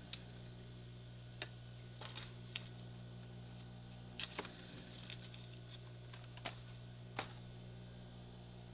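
A steady low hum with a scattered series of sharp light clicks and taps, about nine over several seconds, irregularly spaced.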